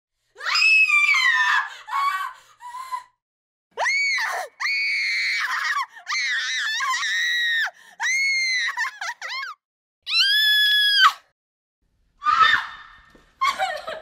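Girls screaming: a string of about ten high-pitched shrieks with short silent gaps between them, some falling in pitch and some held steady. The last few screams near the end are rougher and breathier.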